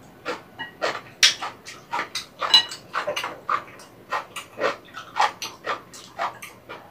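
Close-miked eating sounds: quick wet smacks and slurps of someone chewing soupy rabokki, ramen noodles and rice cakes in broth, a few each second.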